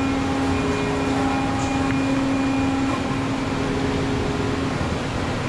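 Husqvarna DXR310 demolition robot's electric-hydraulic power pack running, a steady hum with one strong constant tone as the concrete crusher works; the main tone drops out briefly near the end.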